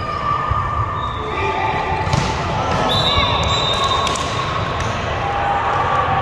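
Gym ambience during an indoor volleyball match: the ball thuds, shoes squeak briefly on the court floor, and crowd voices murmur in the hall.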